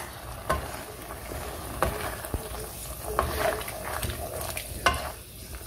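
Wooden spatula stirring and scraping beef stew in a nonstick frying pan, with the stew sizzling in freshly added oil and several sharp knocks of the spatula against the pan. This is the bhuna stage, the stew being fried down in its oil.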